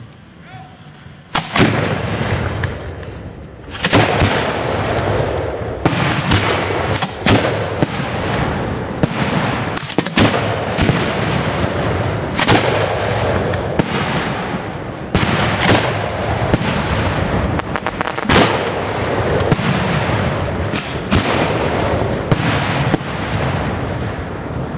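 1.3G display fireworks going off in a dense barrage: sharp booms one on top of another over a continuous rumbling wash, starting suddenly about a second in.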